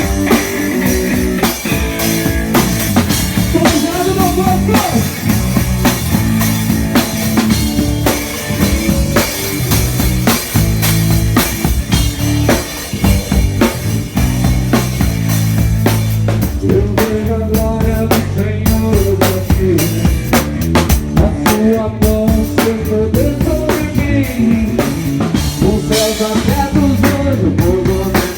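Live band playing an upbeat song: a drum kit keeping a steady, busy beat under bass and guitar, loud throughout.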